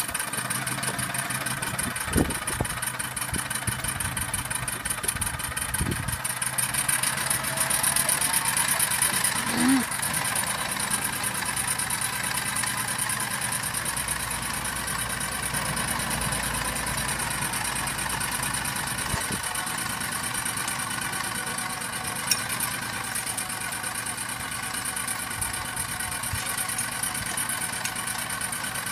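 Home-built miniature steam engine on a model Hornsby chain crawler running steadily, a constant hiss of steam over its mechanical running noise, with a few sharp knocks.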